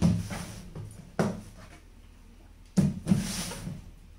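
Three plastic knocks, the last followed by a brief scrape, as a Savic Nestor hooded plastic cat litter box is shifted and turned on a tiled floor.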